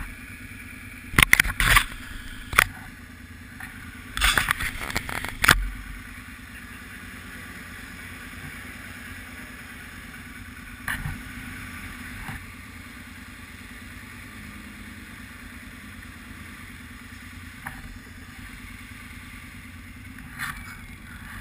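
ATV engine idling steadily, with a cluster of loud knocks and rustles in the first six seconds.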